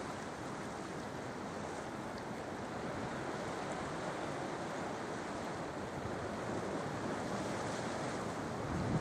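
Sea surf washing onto the shore in a steady, continuous rush.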